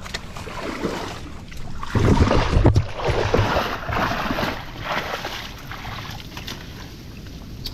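Gloved hand sloshing and patting the muddy water of a flooded mudskipper burrow, irregular wet splashing that is loudest about two to three seconds in.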